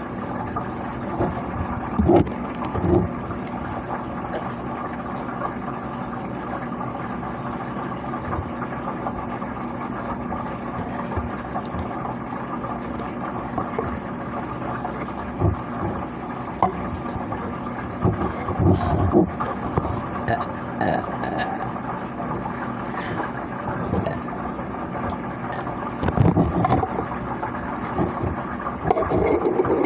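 A person burping: a few short, loud belches a couple of seconds in, a cluster of them in the middle, and more near the end, over a steady background hum.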